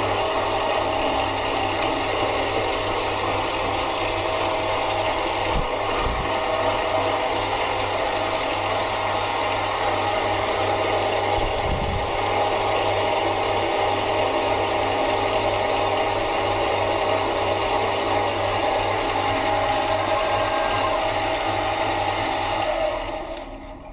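Mini lathe running steadily while turning aluminium stock: a constant motor and gear hum with a steady whine, fading out near the end.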